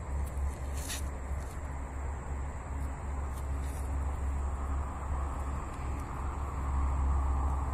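Steady low rumble of outdoor background noise, with a faint click about a second in.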